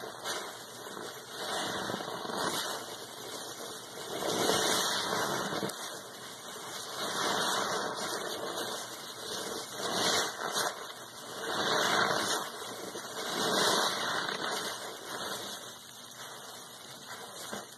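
A soapy sponge squeezed by hand in a basin of foamy water, several times: wet squelching and sloshing with fizzing suds, swelling with each squeeze about every two seconds.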